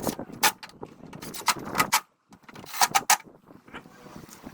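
A run of sharp metallic clicks and clinks, some briefly ringing, from hand tools and parts being handled during reassembly of a motorcycle engine after a clutch disc replacement. The sound drops out briefly about two seconds in.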